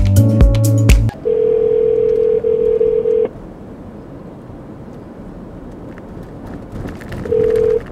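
Electronic music cuts off about a second in. A telephone ringback tone follows, the ringing heard on the caller's end: one steady tone for about two seconds, a pause of about four seconds, then the next ring starting near the end.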